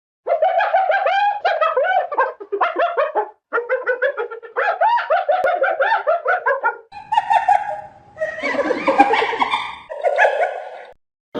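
Hyena giggling: quick runs of short, pitched notes that rise and fall, broken by brief pauses, turning rougher and noisier from about seven seconds in.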